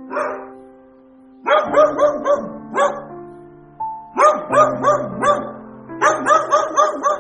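A dog barking in quick runs of about five barks at a time, over gentle piano music.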